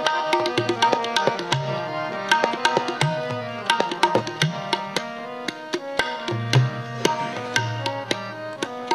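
Tabla and harmonium playing an instrumental passage of Sikh shabad kirtan. The tabla keeps a quick, steady pattern of strokes over the harmonium's held melody.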